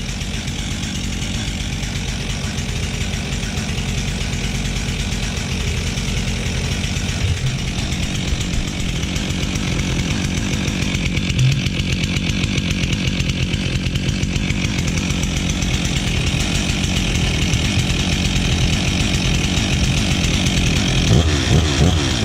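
Stihl MS362 C's two-stroke chainsaw engine running steadily while it warms up after a cold start, growing a little louder and more uneven near the end.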